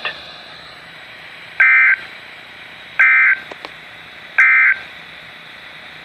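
Three short, buzzy digital data bursts from a NOAA Weather Radio receiver's speaker, about a second and a half apart, with faint radio hiss between them: the SAME end-of-message code that closes an Emergency Alert System alert.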